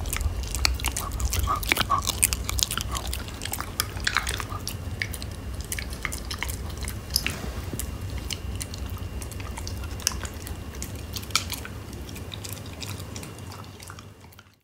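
Shiba Inu chewing a dog dental chew, with irregular crunching clicks of teeth on the chew, fading out near the end.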